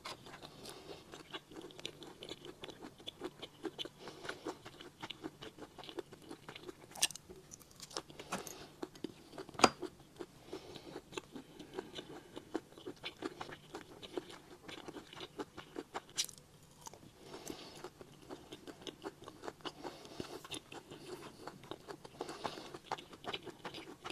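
Close-up chewing of attap palm seeds (nipa palm fruit): a dense run of small mouth clicks. A few sharper clicks come about a third of the way in and again about two-thirds in.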